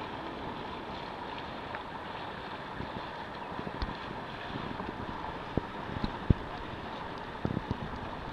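Wind buffeting the microphone over lapping harbour water. A few sharp knocks stand out in the second half.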